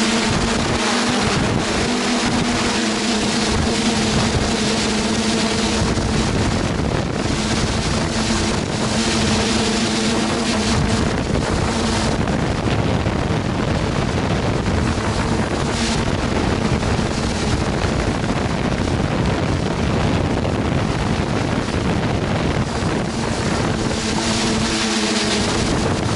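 Quadcopter's four brushless motors and 9-inch propellers humming steadily, heard through the microphone of the camera on board, with wind rushing over the microphone. The motor hum stands out clearly in the first few seconds and again near the end; in between, the wind noise covers much of it.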